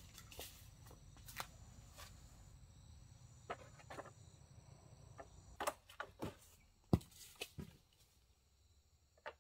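Irregular light knocks and clicks, about a dozen, over faint steady high insect calls.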